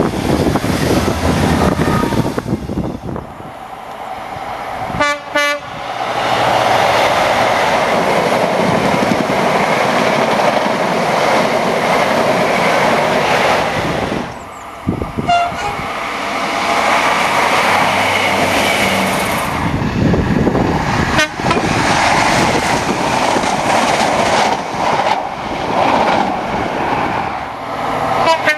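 Diesel trains passing close on the line, their engines running and wheels on the rails, in several short clips joined by sudden cuts.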